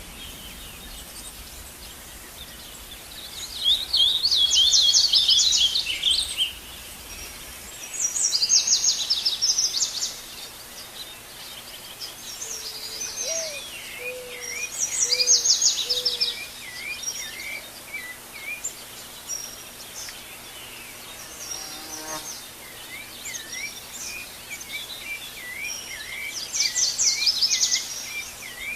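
Wild birds singing in a dawn chorus. A loud, fast, high trilled song comes four times, each burst lasting about two to three seconds. Softer repeated whistled notes fill the second half, and a few low single notes come about halfway through.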